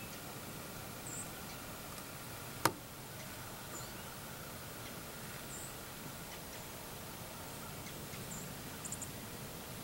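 Quiet outdoor ambience with a steady faint hiss, broken by several short, very high-pitched bird chirps, one of them a quick triple near the end. A single sharp click sounds a little under three seconds in, the loudest thing heard.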